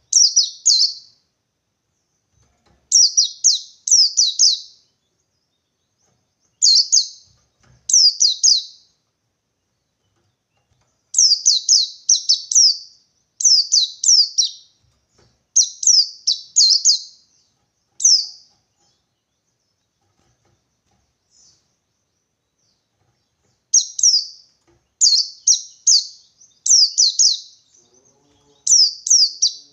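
White-eye (pleci) singing its 'ngalas' rival-seeking song: short high bursts of quick falling notes, in groups of two or three with pauses between, and a break of a few seconds in the middle.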